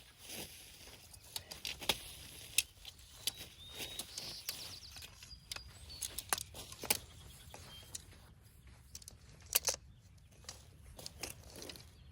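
Scattered clicks, clinks and rustling from camping gear being handled and set down, over a low steady background rumble.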